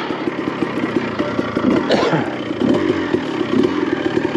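2001 Honda CR250R's single-cylinder two-stroke engine running at low revs as the bike rolls toward a steep climb, its pitch shifting about two seconds in.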